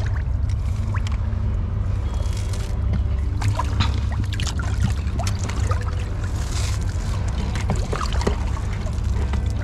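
Water lapping and dripping against concrete pier pilings over a steady low rumble, with scattered small clicks and a brief splash about two-thirds of the way through.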